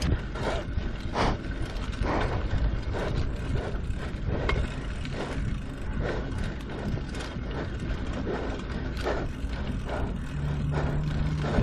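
Bicycle drivetrain clicking and rattling while riding a rough road, with a string of irregular ticks a few times a second over a low rumble of wind on the microphone.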